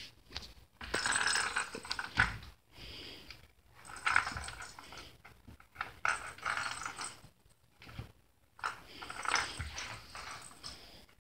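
A ball rolling and rattling around inside a plastic circular track toy as a kitten bats it, in four bursts of a second or two each with a few sharp clicks.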